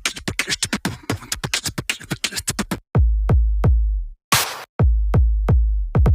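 Electronic music with a drum-machine beat: a fast run of ticking hi-hats, then deep bass hits that drop in pitch, with a snare-like snap between them.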